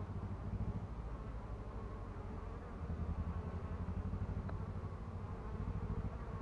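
Honeybees buzzing steadily at the hive entrances as foragers fly in and out and crowd the landing boards.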